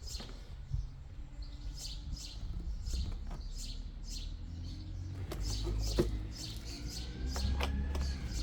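Small birds chirping, short falling chirps repeated two or three times a second, over a steady low hum, with a couple of sharp clicks.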